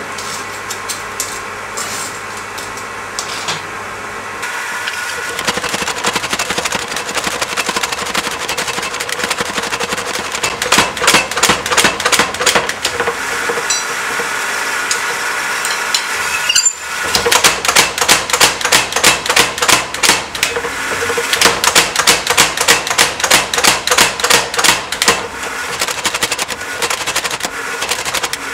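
Mechanical power hammer striking hot steel in rapid, evenly spaced runs of blows, with a steady hum under them. The first few seconds hold only a steady low hum before the hammering starts.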